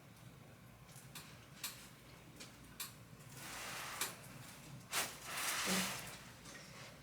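Faint handling sounds as a patient is repositioned on a chiropractic table. There are scattered light clicks and two longer rustling swishes, about three and five seconds in.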